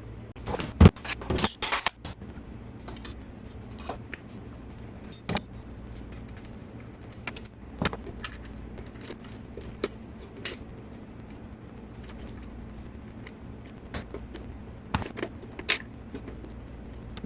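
Metal tools and parts clinking and knocking as they are handled, with a cluster of loud knocks about a second in and scattered lighter clicks after, over a low steady hum.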